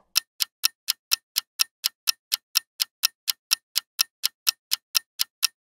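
Quiz countdown timer sound effect: a clock ticking quickly and evenly, about four ticks a second, while the time to answer runs down.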